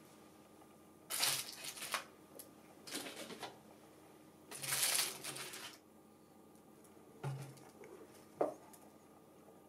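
Crumpled aluminium foil in a baking pan crinkling in about four short bursts as snail shells are pressed into it, with one sharp knock near the end.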